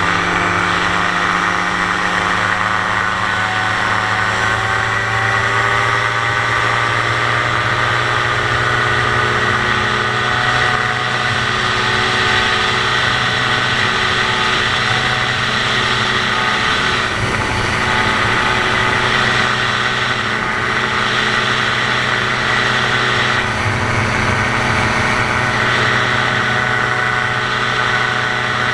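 Dominator gyroplane's pusher engine and propeller running at takeoff power during the takeoff roll and climb-out: a loud, steady drone that rises in pitch over the first few seconds, then holds.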